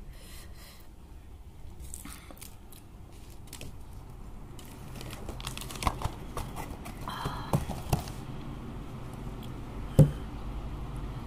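Fan running, its steady low rush of air growing louder from about halfway through. Hands handle things close to the microphone with crinkling and a few knocks, the loudest near the end.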